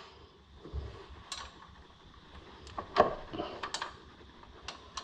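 Scattered metallic clicks and clinks of hand tools and bolts while working the alternator's mounting bolts free, about half a dozen separate knocks with the loudest about three seconds in.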